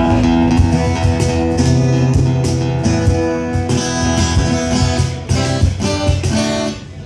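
Acoustic guitar played through a PA during a soundcheck, with chords strummed and picked and notes ringing on. The playing stops shortly before the end.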